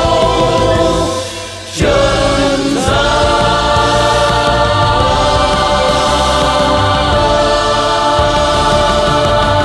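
A group of singers holds long sustained notes over a backing track, sounding like a choir: the drawn-out close of the song. The music thins briefly about a second in, comes back strongly just before two seconds, then holds with chord changes.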